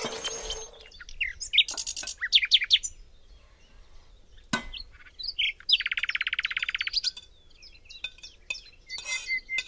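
Small birds chirping in short rising calls, with a fast trill of rapidly repeated notes lasting about a second, some six seconds in. A single sharp click comes near the middle.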